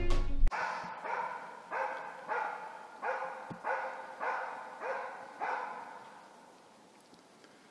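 A grey elkhound (Swedish gråhund) barking in an even series of about nine barks, a little under two a second, each trailing off, fading out about six seconds in. This is the standing bay (ståndskall) of a hunting dog holding wild boar at bay.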